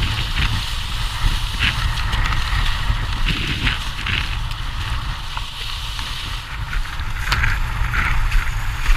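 Wind buffeting an action camera's microphone with a deep rumble while a windsurf board sails over choppy water, the hiss of spray and chop underneath. A few louder splashes stand out about two, three and a half, and seven to eight seconds in.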